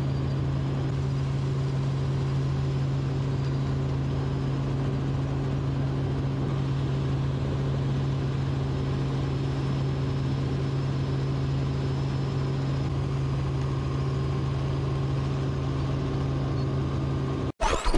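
Steady engine drone of an aircraft in flight, heard from inside the cabin, holding one low pitch. It cuts off abruptly near the end, followed by a brief loud burst of different noise.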